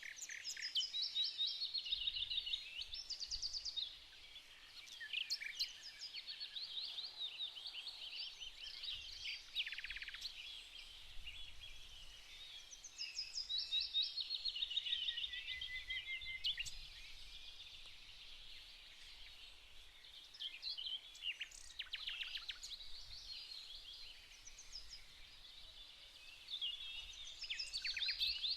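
Several songbirds singing at once: overlapping high trills and chirps in repeated short song phrases, over a faint low rumble.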